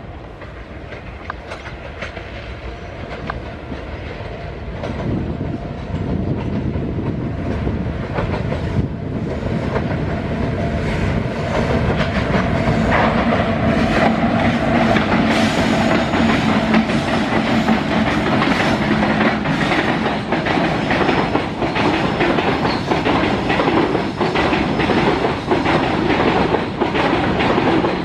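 Long freight train approaching and rolling past, getting louder over the first dozen seconds. A steady hum runs through the middle, and the wheels click rhythmically over the rail joints as the wagons pass.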